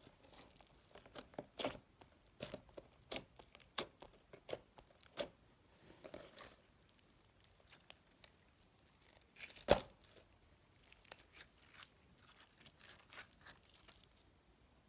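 Store-bought floam slime, full of small foam beads, being squeezed and pressed by hand, giving irregular crunchy crackles and pops. One pop a little past the middle is much louder than the rest, and the crackling dies away near the end.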